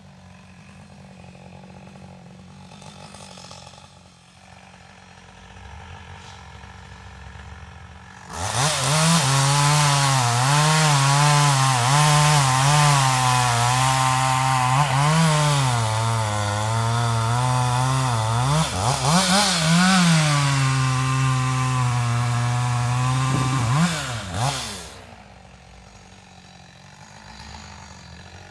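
Chainsaw idling, then throttled up about eight seconds in and cutting through an ash log for roughly sixteen seconds, its engine pitch wavering and dipping as the chain loads up in the wood. It then drops back to idle.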